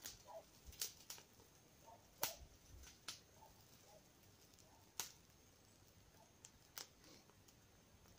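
Sparse sharp crackles and pops, about seven in all, from a smoking tinder bundle of dry grass and thistle heads catching fire, the loudest a little over two seconds in and at five seconds.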